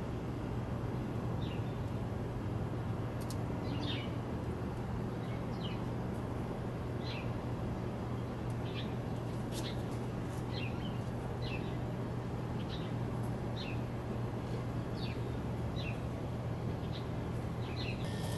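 A small bird giving short, downward-slurred chirps roughly once a second, over a steady outdoor background with a low hum.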